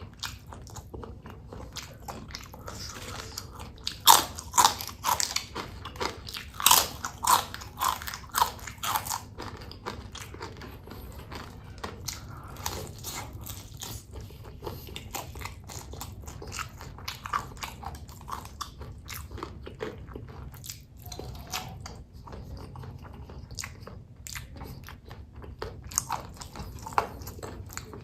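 A person biting and chewing crunchy food close to the microphone: cabai gendot chili peppers eaten with chips. The loudest crunches come in a run about four to nine seconds in, followed by steadier, quieter chewing.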